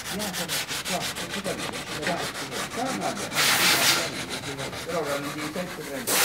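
Hand sanding block rubbed quickly back and forth along the edge of a wooden panel, about eight short strokes a second with a louder, longer stroke a little past three seconds in, smoothing the freshly applied veneer edge banding flush.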